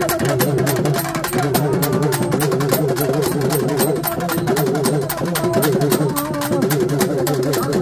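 Temple procession drum ensemble playing: rapid, even drumbeats under a wavering melody line and a steady low drone.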